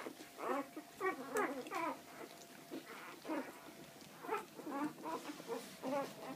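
Newborn Labrador retriever puppies squeaking and whimpering while they nurse, in short high cries about two a second.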